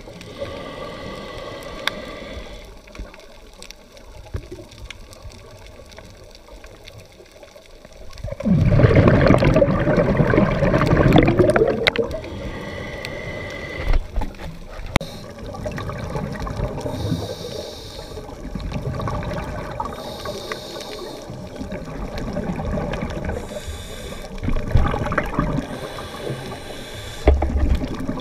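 Scuba regulator breathing underwater: short hissing inhalations alternating with gurgling rushes of exhaled bubbles, the loudest and longest exhalation coming about nine seconds in.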